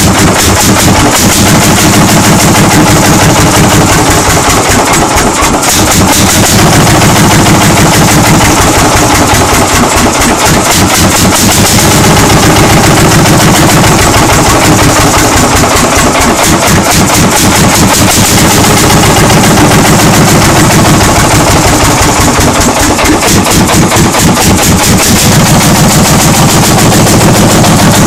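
Lanz Bulldog's single-cylinder two-stroke hot-bulb engine running on its first start after 40 years, a loud, steady, rapid stream of sharp exhaust pops.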